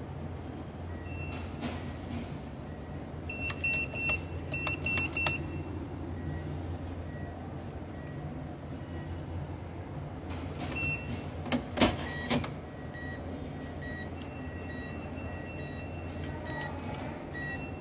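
Hitachi ATM processing a transaction: a run of short electronic beeps with clicks a few seconds in, then a cluster of loud mechanical clicks and clunks from the machine's internal mechanism near the middle, over a steady low hum.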